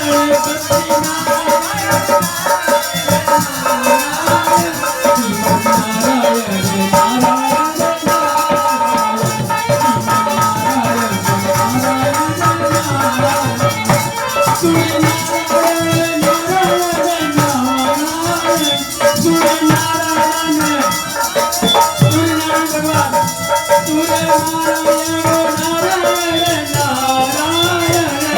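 Devotional kirtan music: a wavering melody over steady held drone tones, with a shaken rattle and hand percussion keeping a fast beat.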